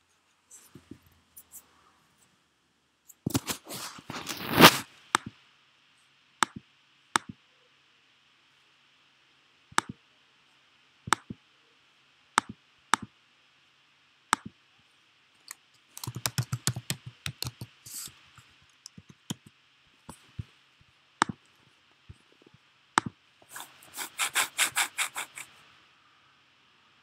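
Computer keyboard typing in three short runs, with single mouse clicks scattered between them. A faint steady hiss runs underneath.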